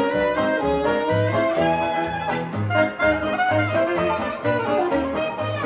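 A small hot-jazz band playing: saxophone and brass horn lines weaving over a rhythm section, with the bass sounding about two notes a second.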